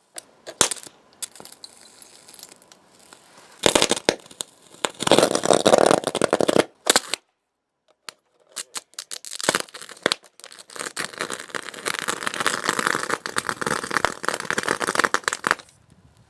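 Electric arc from a copper rod fed by four lead-acid batteries in series, short-circuiting a motherboard and burning through its copper: sharp snaps at first, then long stretches of dense crackling and sputtering, broken by a gap of about a second midway.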